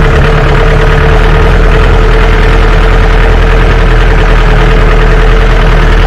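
Four-wheel-drive jeep's engine running loud and steady as it climbs a rough, rocky off-road track, with a steady whine held over it.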